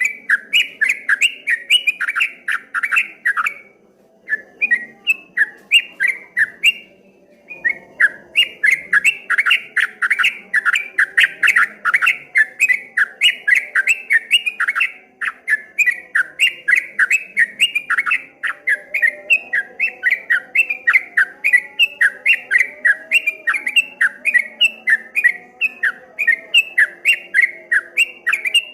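Yellow-vented bulbul (trucukan, the large 'trucuk kebo' type) singing a long, fast, bubbling run of loud chirping notes, about five a second, in the rolling 'ropel' style. The song breaks off briefly twice in the first seconds, then runs on without a pause.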